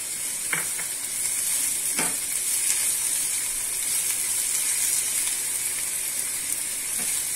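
Chopped vegetables (carrot, onion and tomato) sizzling in hot oil in a nonstick pan while a silicone spatula stirs them. There is a steady high hiss, with two brief knocks about half a second and two seconds in.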